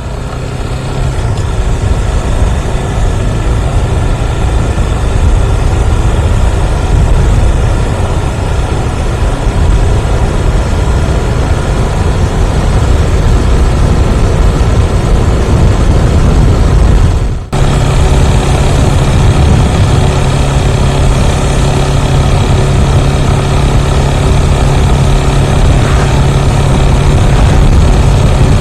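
Motorcycle engine running steadily on the move, a loud continuous drone with strong low rumble. About seventeen seconds in the sound cuts abruptly, and a steady low hum is stronger afterwards.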